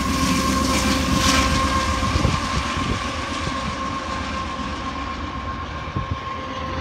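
Loaded coal train rolling away: the rumble and clatter of the cars on the rails fading steadily, with a steady high squeal from the wheels that sinks slowly in pitch as it recedes.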